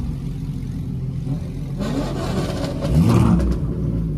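Car engines idling, with one engine revving briefly up and back down about three seconds in.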